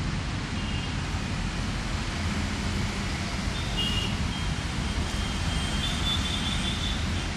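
Steady outdoor noise of road traffic, a continuous rumble with no single event standing out.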